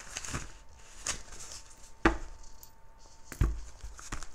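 A deck of tarot cards being shuffled and handled by hand: soft rustling and card noise, with two sharper knocks about two and three and a half seconds in.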